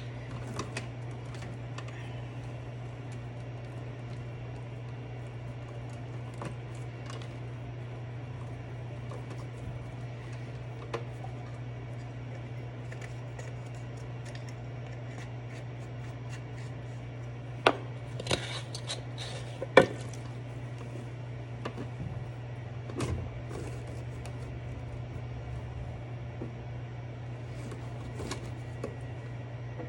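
Scattered clicks and knocks of plastic hose and fittings being handled and pushed onto a condensate pump, with a few louder clacks in the middle, over a steady low hum.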